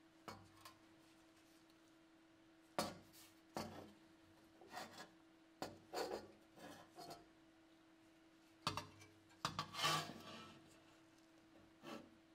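Rusted steel shell of a WWI German M16 Stahlhelm being handled and shifted on a workbench by gloved hands: irregular light knocks and scrapes of rough rusty metal against the bench, the busiest scraping about two-thirds of the way through.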